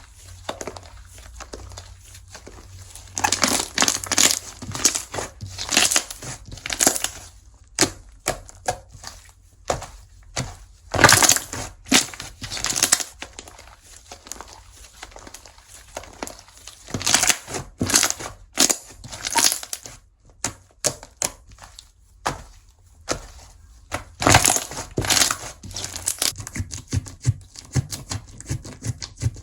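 Hands squeezing and kneading slime: crackling, clicking sounds that come in several bursts of squeezing, with quieter scattered clicks between them.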